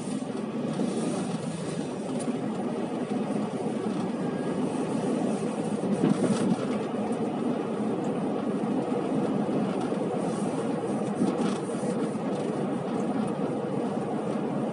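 Strong wind blowing across the microphone: a continuous rushing noise with brief louder gusts, the strongest about six seconds in.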